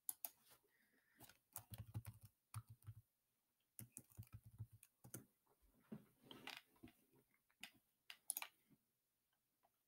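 Quiet computer keyboard typing: an irregular run of key clicks as a search word is typed, with a few more clicks near the end.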